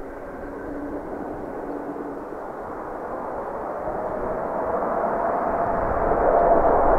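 Boeing 777-200's twin jet engines at high power as the airliner rolls along the runway: a roar that grows steadily louder, with a faint held whine in it.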